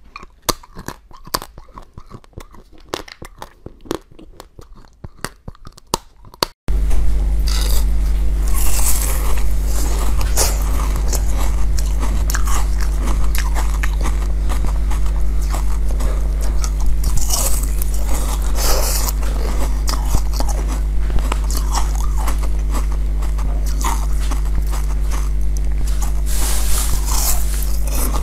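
Close-up eating sounds: a person biting into food with crisp crunches and chewing. About six and a half seconds in, the sound jumps to a louder recording with a steady low hum under the bites and crunches.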